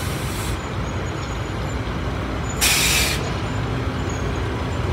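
A loaded dump truck's diesel engine rumbling steadily as it pulls away. Two short hisses of compressed air cut through: one ending just after the start, and a louder one about two and a half seconds in.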